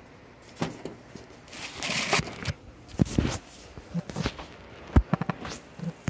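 Handling noise: irregular clicks and knocks with a brief rustle about two seconds in, and the sharpest knock about five seconds in.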